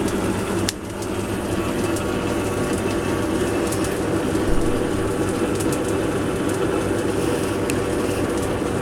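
Metal lathe running steadily while turning down a metal bar, the tool taking a cut, with a steady hum and a few faint ticks.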